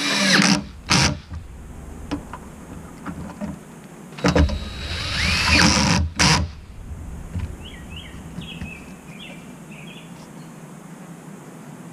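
Cordless drill set to a torque setting, driving a fastener into a roof rack crossbar in short runs: two brief spins at the start, then a longer run about four seconds in that builds and cuts off, followed by one short burst.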